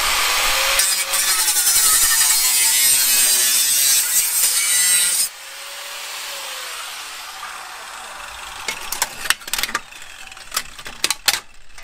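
Angle grinder cutting through a car's sheet-steel brake dust shield behind the front hub: a loud, harsh grinding for about five seconds that stops suddenly. The grinder then winds down more quietly, followed by a run of sharp metallic clicks and knocks as the cut shield is worked loose.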